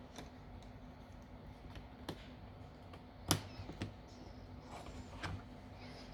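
Sparse small clicks and taps of tools and parts being handled on a smartphone under repair, about four in all, the sharpest a little past three seconds in.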